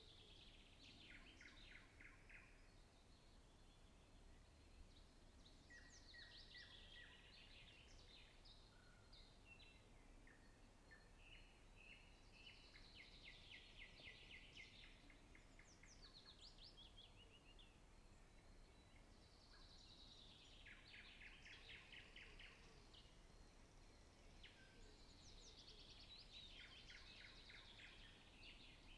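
Faint songbird song: the same short phrase sung about five times, every six or seven seconds, each a quick run of notes falling in pitch. A low steady background hum sits under it.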